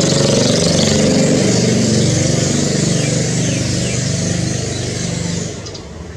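A motor vehicle's engine running steadily, then falling away sharply about five and a half seconds in.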